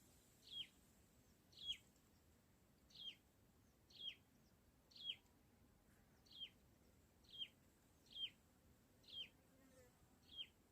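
A bird calling faintly: a short, sharply falling note repeated about once a second, ten times.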